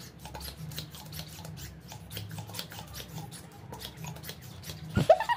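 Small rubbery squeaks and clicks from a long latex modelling balloon being gripped and waved, with a loud squeak rising in pitch about five seconds in.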